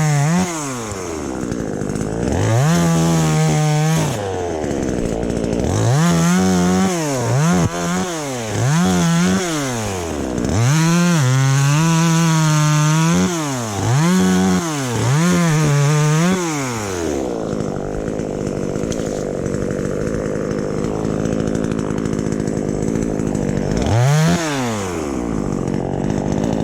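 Petrol chainsaw revved again and again, its engine pitch rising to a high held whine and dropping back about a dozen times, then running at a steadier, lower speed for several seconds before one more rev near the end.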